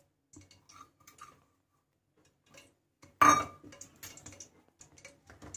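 Faint light ticks and taps, then one sharp metallic clink about three seconds in as a small stainless steel bowl is set down; its ring dies away quickly.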